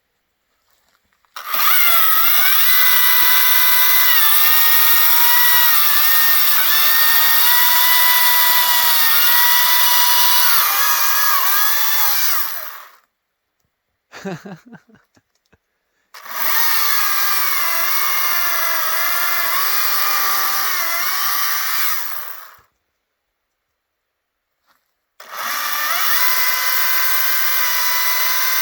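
Battery-powered electric chainsaw cutting into a tree trunk in three runs: a long one of about eleven seconds, a shorter one of about six seconds, and a third starting near the end. Its motor whine wavers and dips in pitch as the chain bites, with near silence between the cuts.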